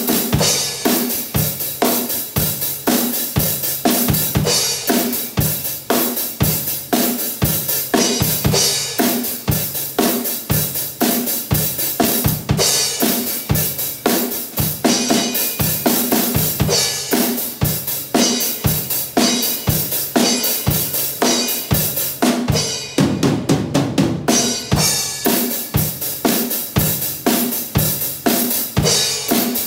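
Acoustic Pearl drum kit played as a driving rock beat: bass drum, snare and crashing cymbals struck in a steady rhythm, the drum part heard alone, with a burst of very rapid strokes a little past two-thirds of the way through.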